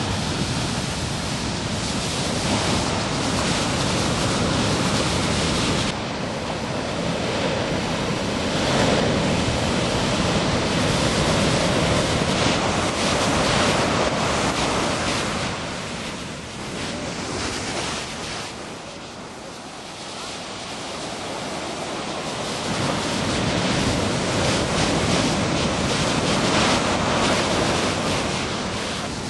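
Big ocean waves breaking and surf rushing, with wind buffeting the microphone. The sound sags for a few seconds past the middle, then builds again.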